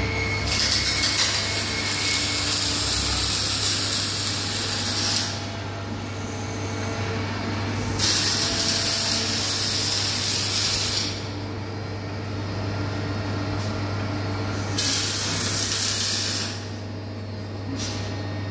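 Three long bursts of loud hissing, each lasting a few seconds, over a steady low machine hum in a metalworking shop.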